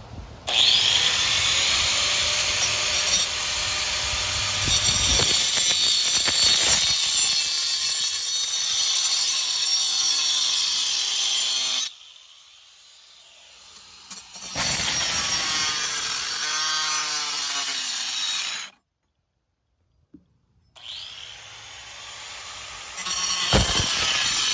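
Abrasive cut-off tool, most likely an angle grinder, cutting with a high hissing whine. It runs in long passes: one for about eleven seconds, another of about four seconds after a short pause, and a brief burst near the end.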